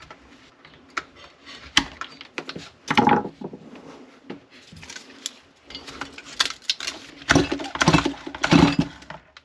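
Stihl MS180 chainsaw's recoil starter pulled several times in quick succession near the end, the rope whirring as the two-stroke engine spins over with little compression while a spark tester checks the ignition. Before that, scattered clicks and knocks of handling.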